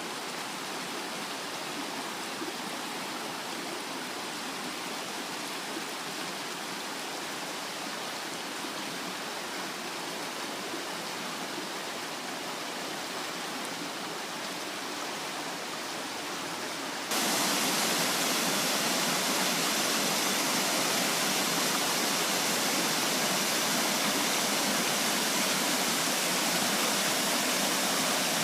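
Steady rush of water from a waterfall. About seventeen seconds in it suddenly becomes louder and hissier, then holds steady.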